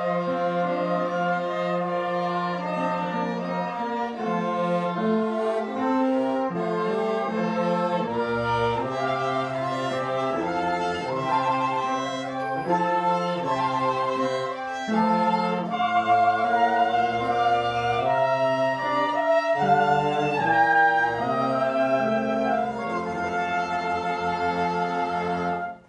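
Small mixed ensemble of bowed strings, bassoon and brass, trombone among them, playing a piece together, growing louder about halfway through and stopping abruptly at the very end.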